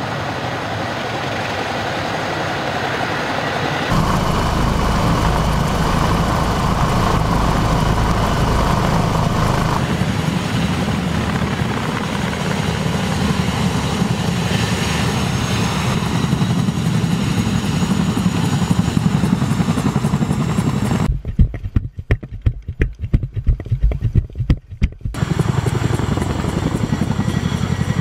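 CH-47 Chinook tandem-rotor helicopter running loud and steady with its rotors turning, the sound shifting abruptly twice in the first ten seconds. Near the end comes a few seconds of heavy low buffeting.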